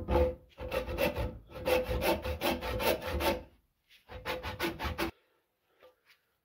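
Steel sledgehammer head scraping against a carved wooden handle as it is worked down onto the handle's shaped end, in rapid rubbing strokes. One long run, then a shorter one that stops about five seconds in, leaving a few faint ticks.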